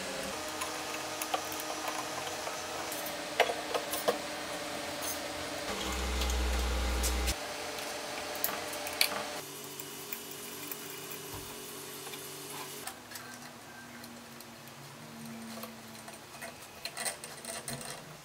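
Scattered sharp clicks and light knocks over a steady hum, with a louder low hum lasting about a second and a half around six seconds in.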